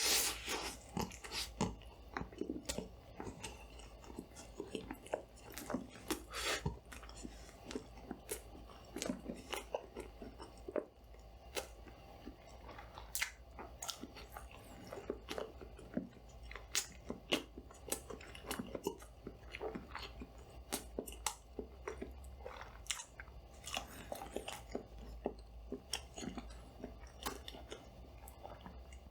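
Close-up chewing and biting of food, with irregular crunches and wet mouth clicks, over a steady low hum.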